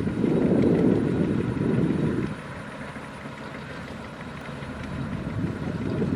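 Kubota DC-105X rice combine harvester's diesel engine and machinery running, the noise swelling loud for about two seconds, easing off, then building again near the end.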